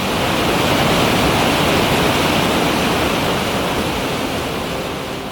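A waterfall's heavy, steady rush of falling water, a dense hiss with no pitch, easing off slightly toward the end. This is the Toce falls, where the river drops 140 metres.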